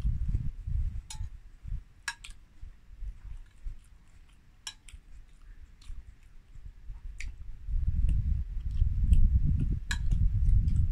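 A person chewing food while a metal spoon clinks and scrapes on a plate, a few sharp clinks a second or more apart. A low rumble of wind on the microphone sits under it at the start and comes back louder from about eight seconds in.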